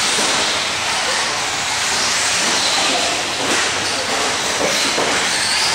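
Steady loud hiss in the raceway hall, with a faint high electric-motor whine from an RC short-course truck in the second half.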